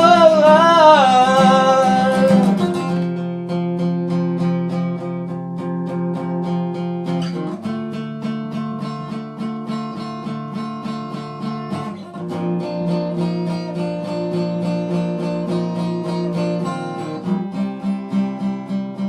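A singer holds a last note with a wavering pitch for about three seconds over an acoustic guitar. Then the guitar strums chords alone, changing chord every few seconds.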